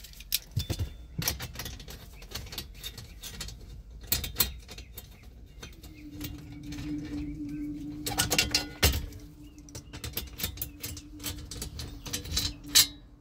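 Hand tools clicking and clinking: a 10 mm socket on an extension knocking against the under-dash shield and its screws as they are worked loose by hand, in short irregular taps with a dense clatter about two-thirds through and one sharp click near the end. A steady low hum comes in about halfway through.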